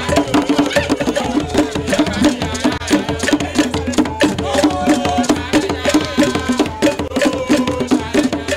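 Music with a fast, busy percussion beat of sharp, evenly spaced knocks under a pitched melody.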